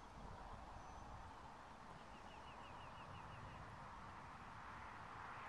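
Faint outdoor background with a bird calling a quick run of about eight short, evenly spaced notes, a few seconds in. A couple of thin, high whistles come near the start.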